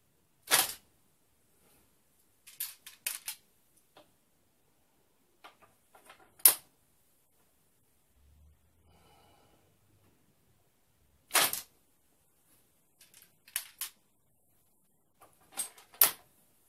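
Replica Japanese sword (mogitō) fast-drawn from its scabbard and sheathed again: four loud, sharp clacks a few seconds apart, with clusters of quicker, lighter clicks of the guard and blade against the scabbard mouth in between.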